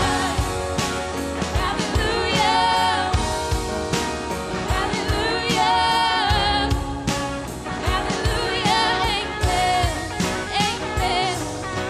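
Live contemporary worship band playing a song: women's voices singing long, wavering held notes over guitars, bass, keyboard and drums keeping a steady beat.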